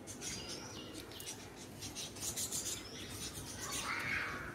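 Chilli plant leaves and stems rustling as hands pick chillies, with a few bird chirps.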